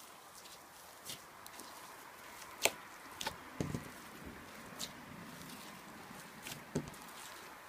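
Slime being handled: scattered sharp clicks and soft squishes, the loudest click about two and a half seconds in, with a few dull thuds.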